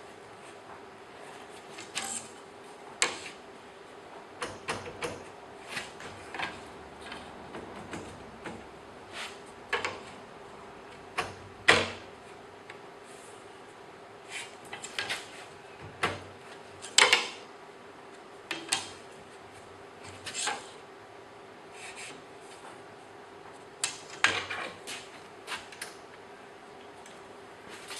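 Scattered knocks, clicks and clunks of wood and metal being handled and set at a bandsaw's fence, the loudest about twelve seconds in and again about seventeen seconds in, over a faint steady hum.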